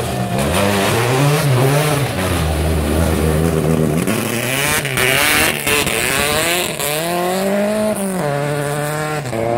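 Rally car engine revving hard, its pitch rising and dropping through gear changes as it accelerates through a water crossing, with a rush of splashing water about four seconds in. Near the end the engine climbs in a long rising rev, then drops back.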